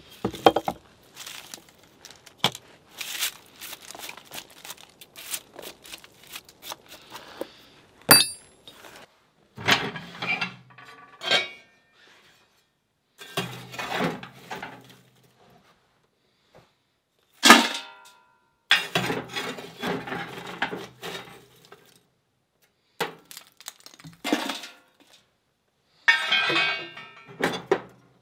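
Hatchet strokes chopping and shaving wood, in quick short knocks for the first several seconds. Then clanks, clinks and scrapes of metal at a cast-iron wood stove as its firebox is raked out, with a few ringing metallic hits.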